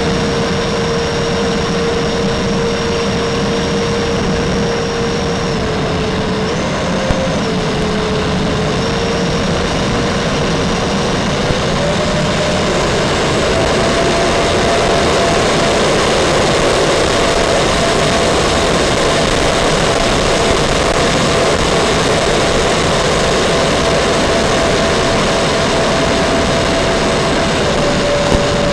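Electric ducted fans of an RC F-14 Tomcat model in flight: a steady whine over a rushing noise. The pitch dips briefly a few times early on, steps up about twelve seconds in and again a little later, then drops slightly near the end as the throttle changes.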